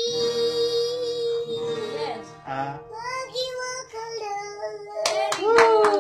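A young child singing a long held note and then a few more lines over acoustic guitar accompaniment. About five seconds in, hand clapping breaks out along with voices as the singing ends.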